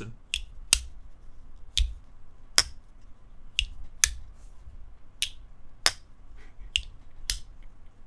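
Lake Champlain Barlow slipjoint pocket knife being flicked open and shut by hand, its stiff backspring snapping the blade into place with a sharp click each time: about ten clicks, irregularly spaced. This is the knife's "walk and talk": a "thwack, thwack" from strong spring tension.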